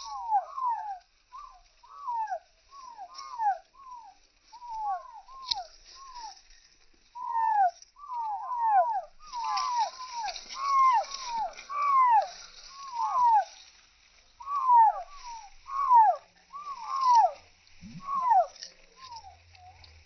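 A young chicken chick peeping over and over: loud, clear whistled peeps that each slide down in pitch, often coming in quick twos and threes.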